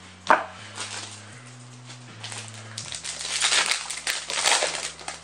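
Sharp click about a third of a second in, then about two seconds of loud crackling and crinkling as a foil trading-card booster pack is handled and torn open.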